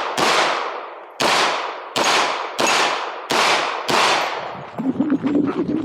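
9mm competition pistol, a KMR Spectra, fired in a string of about six shots, each under a second apart and each ringing out after the crack. After the last shot a rapid patter of small clicks and rattles follows.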